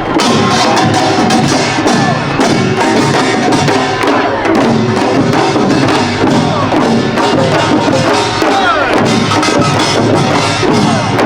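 Korean pungmul percussion band playing a fast, dense rhythm: small hand gongs (kkwaenggwari) clanging over janggu and buk drums.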